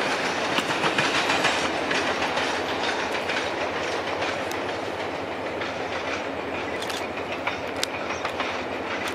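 Passenger train cars rolling away on the rails, a steady rumble of the wheels with scattered clicks over the rail joints, slowly fading as the train recedes.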